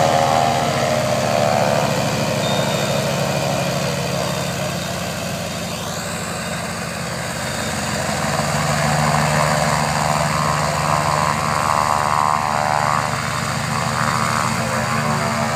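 Antonov An-2 biplanes' nine-cylinder Shvetsov ASh-62 radial engines running with propellers turning, the planes moving about on the grass. The engine sound fades a little in the middle and grows louder again after about nine seconds.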